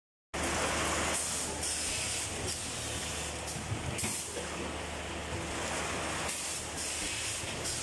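Foam food-box vacuum forming and cutting machine running: a steady mechanical hum with repeated bursts of hissing air every second or so.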